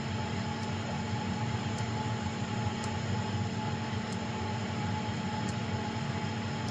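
Steady machine hum from workshop machinery, a low drone with a fainter higher tone, with faint ticks about once a second.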